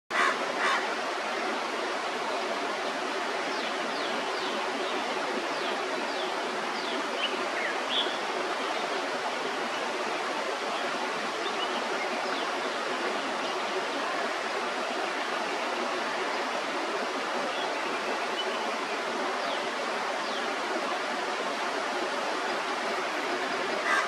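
Steady rushing of running water, with a few faint, short high bird chirps over it, two of them right at the start.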